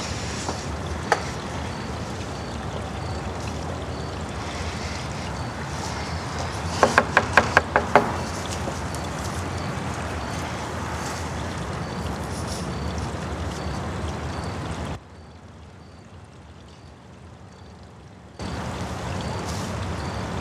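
Steady outdoor background hiss, with a quick run of about six knocks on a door about seven seconds in. A few single clicks come near the start, and the background drops away for a few seconds near the end.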